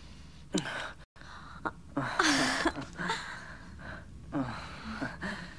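Breathy gasps and sighs from a couple kissing and embracing: several short ones, and a longer voiced one about two seconds in that dips and rises in pitch. The sound drops out completely for an instant about a second in.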